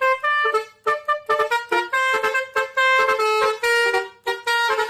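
Telolet bus horn playing a quick tune: a rapid run of horn notes that jump in pitch several times a second.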